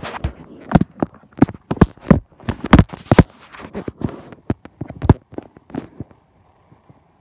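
Handling noise of a phone camera being moved: a string of irregular knocks and rubbing on the microphone, some very loud, which stop about six seconds in, leaving a faint steady hum.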